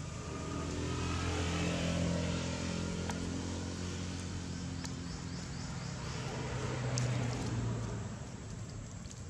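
A motor vehicle's engine running close by, a low hum that swells twice and fades near the end.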